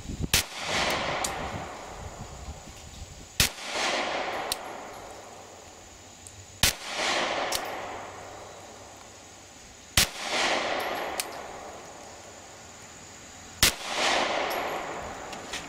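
Glock 43 9mm subcompact pistol fired five times in slow, evenly paced shots about three seconds apart, each shot followed by a short echo that trails off.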